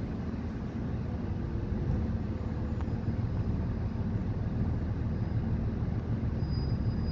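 Cummins L9N natural-gas engine of a New Flyer XN40 bus heard from inside the cabin, running steadily at low speed, getting a little louder about two seconds in as the bus moves off. A faint high whine joins near the end.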